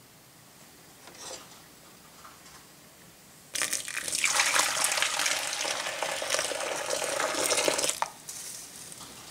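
Soy milk poured in a steady stream from a height into a pot, splashing onto the gypsum-and-cornstarch slurry at the bottom to set it as tofu pudding. The pour starts suddenly about three and a half seconds in and cuts off abruptly about four and a half seconds later.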